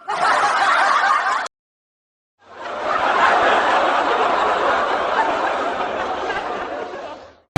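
Laughter in two stretches: a short burst, then dead silence for about a second, then a longer run of about five seconds that fades in and fades out, laid in as a sound effect.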